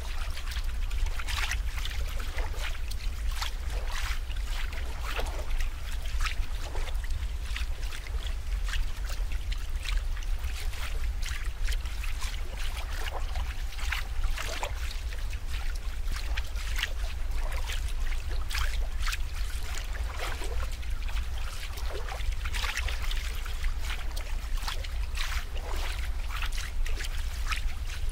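Water trickling and splashing, with many small irregular drips and bubbly plops over a steady low hum.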